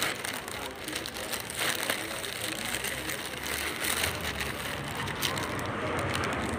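Busy city street ambience heard while walking: a steady wash of traffic noise with faint voices, and a low engine rumble that comes in about halfway through.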